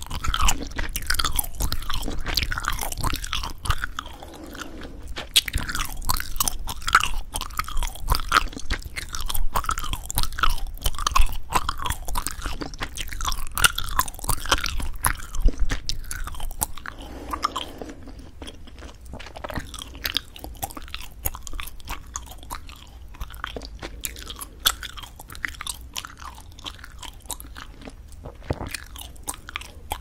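Spearmint chewing gum chewed close to the microphones, with a rapid, dense run of sharp snaps and cracks from the gum. The snapping grows quieter and sparser a little past the middle.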